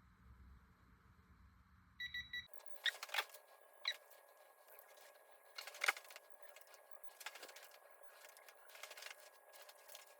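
A few quick electronic beeps about two seconds in, then scattered sharp clicks and knocks of a wrench working on bolts being torqued in stages.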